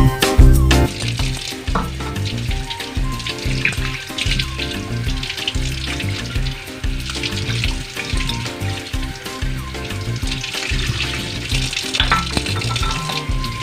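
Crinkling and rustling of plastic or paper packaging being handled, a dense crackle of small ticks over background music.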